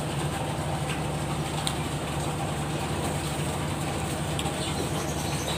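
Steady low drone and hum of ship machinery, an engine or generator running on the big ships moored alongside, unchanging throughout. A couple of faint ticks sound over it.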